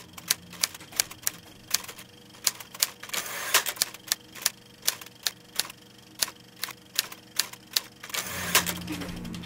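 Typewriter sound effect: keys clacking at an uneven rate of about three a second as text is typed out, with a couple of longer rasping sounds among the strikes.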